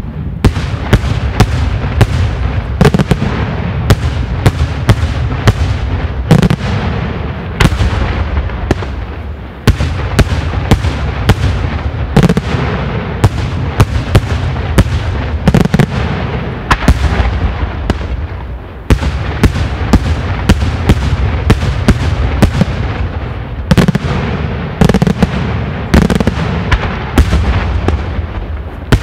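Daytime aerial fireworks barrage: a dense run of sharp bangs from shells bursting in the air, several a second, over a constant low rumble, easing briefly about a third and two-thirds of the way through.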